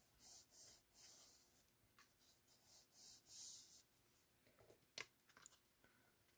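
Faint rubbing and swishing of cardstock as hands press and slide paper pieces against each other, with a short soft tap about five seconds in.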